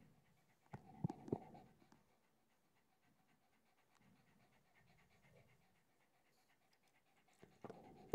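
Pug panting quietly with its mouth open, in a faint, even rhythm. A few sharp clicks come about a second in.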